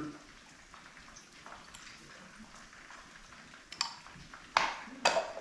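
A quiet stretch, then a few short knocks from kitchen utensils and containers being handled, in the last second and a half.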